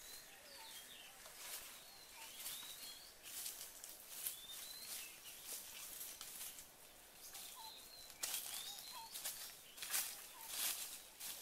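Footsteps crunching through dry leaf litter and brushing past twigs in irregular bursts, louder near the end. Small birds give short, upswept chirps now and then.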